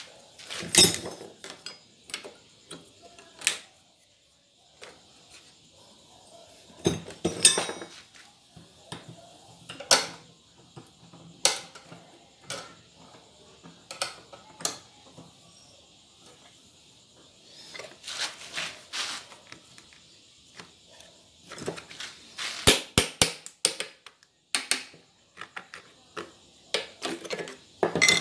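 Intermittent metallic clinks and knocks as short pieces of steel square tubing and a clamp are handled and set down on a wooden workbench, with brief clusters of rattling taps.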